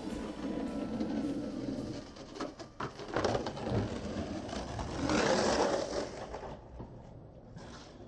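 Skateboard wheels rolling over rough asphalt, with several sharp clacks of the board about two to three seconds in and a louder rush of wheel noise about five seconds in.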